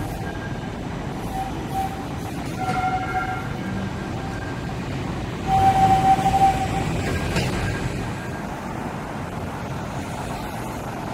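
A tram and road traffic at a busy intersection, with a horn sounding several short, steady toots. The longest and loudest toot comes about five and a half seconds in.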